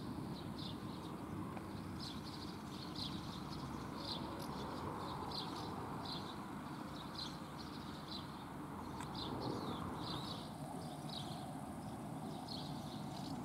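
A small bird chirping over and over, about two short high chirps a second, over a steady low background hum.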